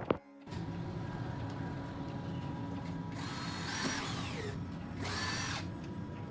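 Handheld power tool run in two short bursts, about three and five seconds in, its whine falling in pitch as it spins down at the end of the first burst. A steady hum runs under it.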